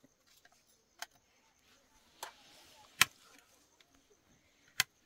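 Four sharp clicks spaced about a second apart, the loudest just past the middle.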